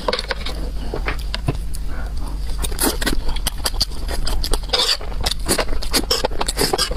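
A person eating: chewing and mouth clicks, a dense run of short crackly clicks that gets busier about halfway through.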